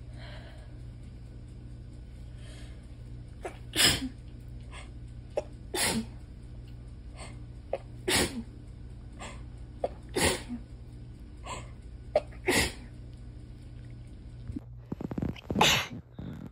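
A woman sneezing in a fit: about five sharp sneezes some two seconds apart, each with a quick catch of breath just before, then a rougher run of sneezes near the end. A steady low hum lies underneath.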